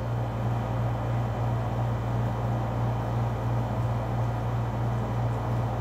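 Steady low machine hum with a soft, even rushing noise, unchanging throughout.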